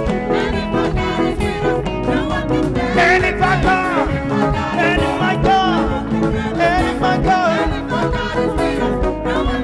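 Live gospel praise music: a band with a steady beat and a sung melody over it.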